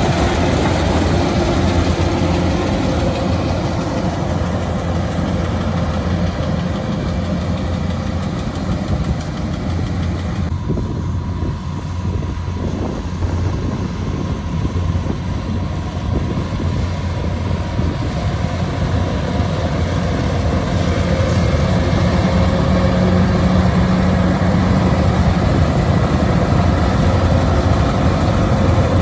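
Kubota DC-105X combine harvester's diesel engine running steadily as it harvests rice, with a strong low hum. The higher machine noise thins out for a couple of seconds about ten seconds in, and the sound grows louder over the last third.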